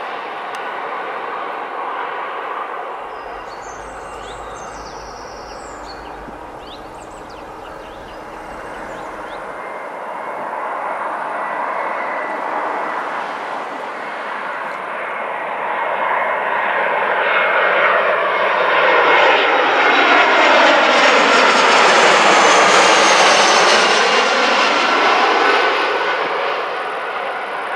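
Jet engines of an Airbus A319 airliner on landing approach, growing louder as it comes in and passing low overhead about three-quarters of the way through, then starting to fade. A quieter, steady aircraft noise is heard in the first part.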